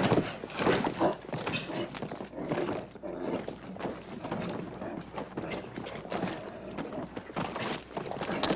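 A horse bucking and stamping under a rider: irregular, heavy hoof thuds on dirt.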